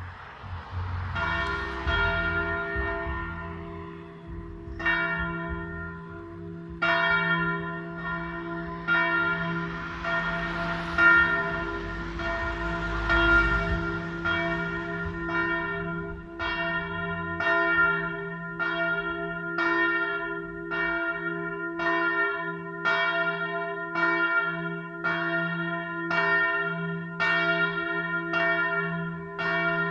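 Single large church bell, the church's bell 1 (its largest), swinging and ringing alone. The first strokes come a few seconds apart as it swings up, then settle into a steady stroke about once a second, over a long, continuous hum.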